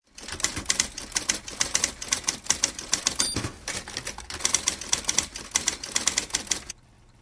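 Typewriter keys clacking in a quick, uneven run, with a short high ding about halfway through. The typing stops abruptly near the end.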